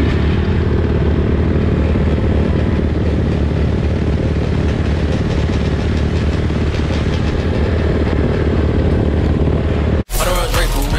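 Dirt bike engines idling steadily at close range. About ten seconds in, the sound cuts off abruptly into hip hop music with rapping.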